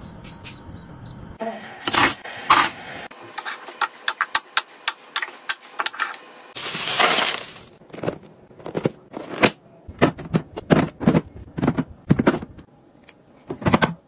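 A few short electronic beeps from an electric pot's touch panel, then a long run of sharp clicks, knocks and clatter as plastic storage containers and their contents are handled. The clatter is densest about seven seconds in.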